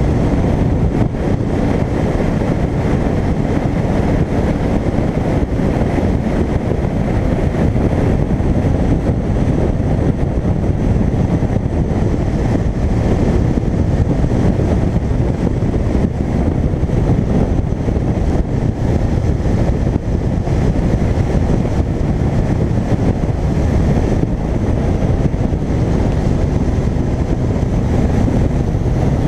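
Steady wind rush buffeting a motorcycle-mounted camera's microphone at highway speed, with the motorcycle's engine running underneath as a faint steady drone.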